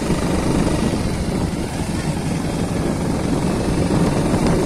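Wind rushing over the microphone and a cloth flag flapping rapidly in the airstream of a moving motorbike, with the engine running underneath.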